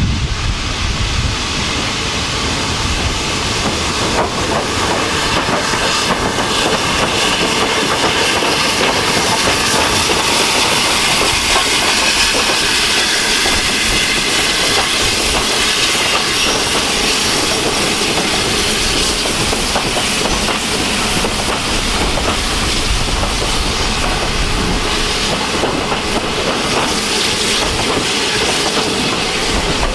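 BR Standard Class 9F 2-10-0 steam locomotive and its coaches running into a station: a steady rumble and rattle of wheels over the rail joints, with a hiss of steam.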